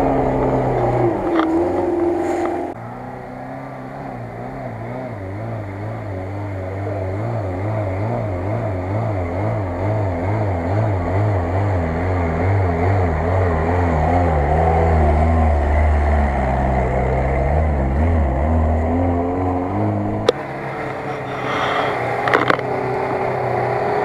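Small off-road 4x4 engines, Lada Niva among them, working hard up a rutted muddy slope. Revs rise and fall quickly as the wheels scrabble for grip, with sudden changes in the sound about three seconds in and near the end as one climb gives way to the next.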